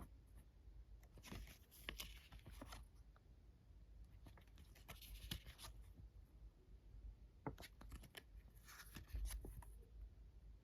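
Faint paper rustling and light clicks of a fold-out CD booklet and plastic jewel case being handled, in short bursts with quiet between.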